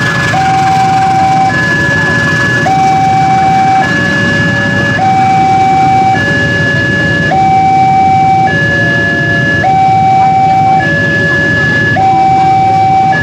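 Railway level-crossing warning alarm (genta) sounding from the loudspeaker on the crossing's signal post: an electronic two-tone signal alternating high and low, each tone held for about a second. Underneath is the rumble of passenger coaches rolling past the crossing.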